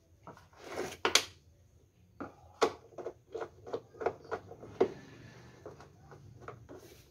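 Handling noise from a Swan F16 electric knapsack sprayer's plastic tank and red control panel: a run of irregular sharp clicks and knocks as the panel is worked on and pressed into place, with a short rustling swish about a second in.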